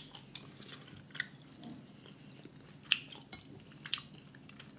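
A person chewing mouthfuls of rotisserie chicken close to the microphone, with irregular sharp wet mouth clicks and smacks.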